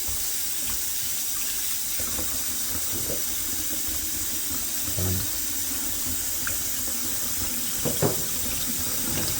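Kitchen tap running steadily into a sink, with a couple of faint knocks about eight seconds in.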